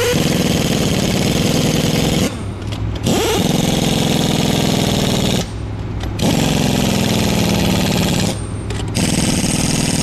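Pneumatic impact wrench hammering lug nuts onto a forklift wheel. It runs in bursts of about two seconds with half-second pauses as it moves from nut to nut: three full bursts, then a fourth starting near the end.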